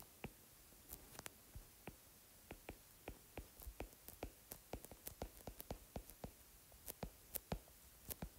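Faint, irregular taps of a stylus tip on a tablet screen during handwriting, a few taps a second.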